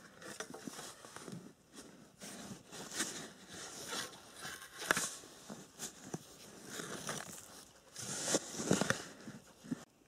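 Shovel digging into soil: irregular crunching and scraping strokes as the blade cuts in and earth is lifted out.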